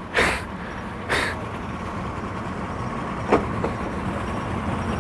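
Steady low rumble of idling engines, with two short hissing bursts near the start and a single sharp click a little past halfway.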